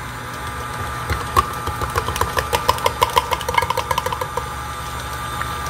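KitchenAid Classic stand mixer's motor running with a steady hum as its flat beater works a thick cream cheese and artichoke mixture. A quick run of sharp clicks and taps, about six a second, comes from about one and a half to four and a half seconds in.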